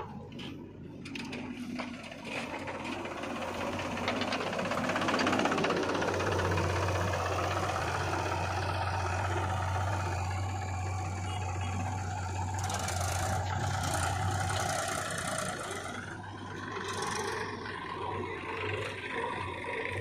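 Diesel engines of a JCB 3DX backhoe loader and a Mahindra 475 DI tractor running while loading soil, a steady low drone that swells for several seconds in the middle.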